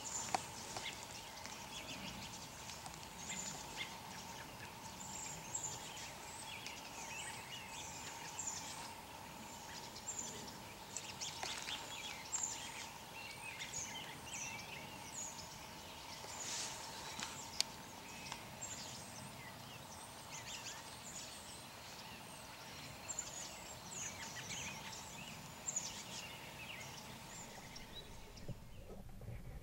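Many small birds chirping in bare trees, a busy scatter of short, high calls with no steady rhythm.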